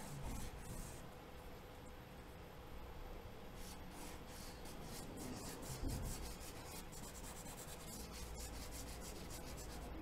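Kneaded eraser rubbing over charcoal-covered drawing paper, lifting out charcoal: faint rubbing in quick short strokes, busier in the second half.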